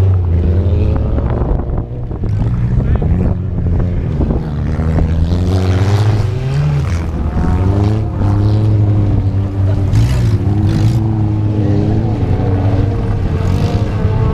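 Old wreck-race cars racing on a dirt track, several engines revving up and down in pitch as the cars accelerate and lift off.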